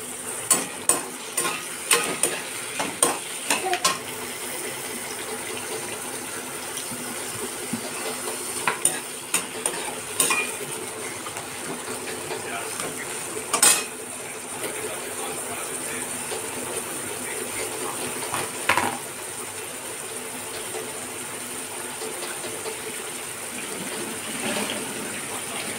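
A perforated steel slotted spoon stirring diced carrots in an aluminium kadai, clinking and scraping against the pan, over a steady sizzle of frying. The stirring clatters quickly through the first few seconds, then comes as a few single knocks and scrapes.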